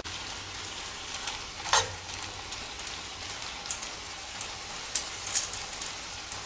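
Diced chicken breast frying in a hot skillet: a steady sizzling hiss with a few sharp crackles, the loudest about two seconds in.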